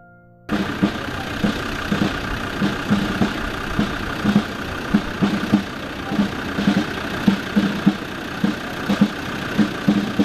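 A vehicle engine running steadily, starting abruptly after a brief silence, with a low thump repeating roughly twice a second.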